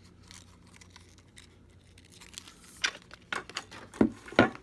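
Handling noise from a bike U-lock and its packaging: a quiet stretch, then a run of sharp clicks and knocks in the second half, the loudest two heavy knocks near the end.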